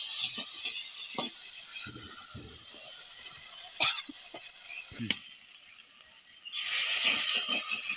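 A metal ladle scrapes and knocks against a clay pot, with irregular clicks, as masala paste is stir-fried in oil with a steady sizzle. This is the kosha stage, where the masala is fried until the oil separates. A louder rush of hiss comes in over the last second or so.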